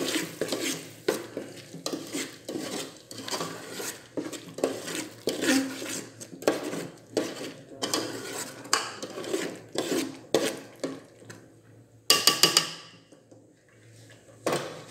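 Metal ladle stirring and scraping a thick masala-and-yogurt gravy in a metal cooking pot, in quick repeated strokes. About twelve seconds in comes a short ringing metal clang, then the stirring stops.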